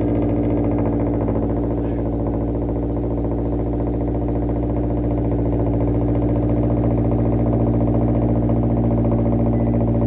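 2022 Toyota GR86's 2.4-litre flat-four idling through catless Tomei unequal-length headers and a Remark axle-back. It settles from its start-up rev into a steady idle in the first couple of seconds, with the uneven boxer rumble that unequal-length headers give.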